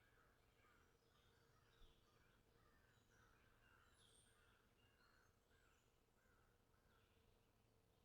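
Near silence, with faint bird calls repeating about twice a second in the background.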